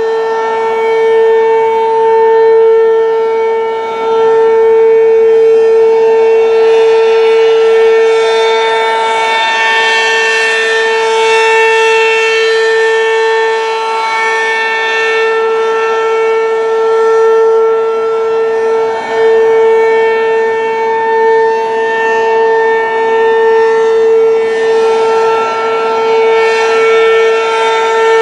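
Werden P-127 outdoor warning siren sounding during a test, a loud steady wail held at one pitch. Its loudness swells and dips, with brief drops about four seconds in and again a little past the middle.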